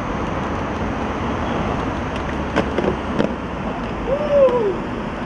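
Steady road-traffic noise, with two sharp skateboard knocks on a stone ledge a little over halfway through, about half a second apart. Near the end comes a brief rising-then-falling pitched sound.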